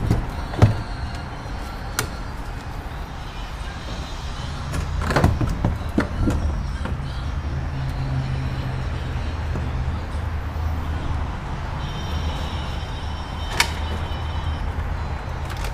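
A steady low hum with a few scattered sharp clicks and knocks, a cluster of them about five to six seconds in.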